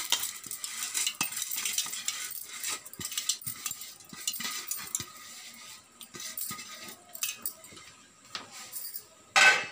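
Scattered light clicks and clinks of steel kitchenware being handled, with one short, loud scraping rush near the end.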